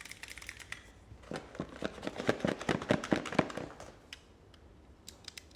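Small plastic toys and packaging handled at a table: a quick, irregular run of clicks and knocks lasting about two seconds, with a few lighter ticks before and after.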